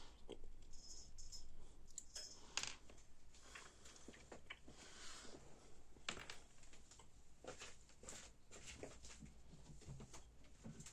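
Faint handling noises, scattered clicks and rustles, over a low steady hum.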